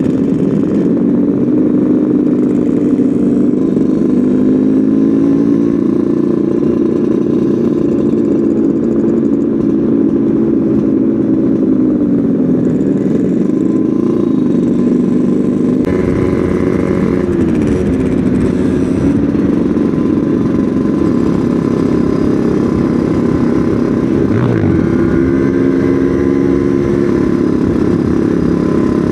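Two-stroke motorcycle engine running on the road, its pitch rising and falling as the throttle and gears change, with a quick dip and rise near the end.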